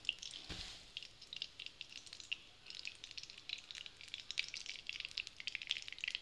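Cooking oil heating in a nonstick kadai on a gas flame, crackling faintly with scattered tiny pops that grow busier after the first couple of seconds, as the oil comes up to heat for tempering.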